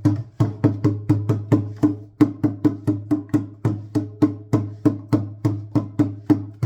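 Small hand drum (tambor) played in a steady, even rhythm of about three to four strokes a second, each stroke with a low ringing tone.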